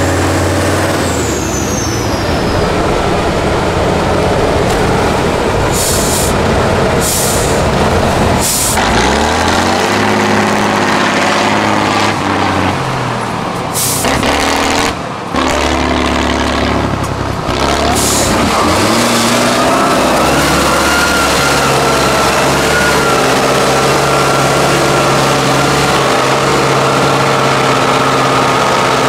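Heavy diesel truck engine revving up and down under load, with several short hisses of air from the air brakes in the first half. A steady whine sits over the engine in the second half.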